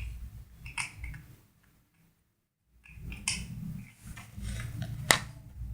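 Small metal lock picks being handled, with light clicks and rustling. The sound drops out briefly in the middle, and a single sharp click comes near the end.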